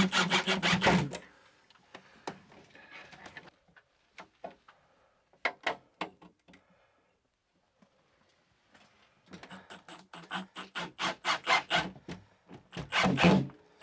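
Cordless drill driving screws to fasten an electrical panel to a plywood backboard: a rapid rattling run in the first second and another from about ten seconds in, with scattered clicks and knocks between.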